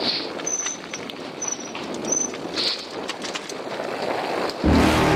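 Mountain bike rolling fast down a dirt and gravel trail: tyres crunching over loose ground and the bike rattling, with scattered clicks. A louder rush near the end.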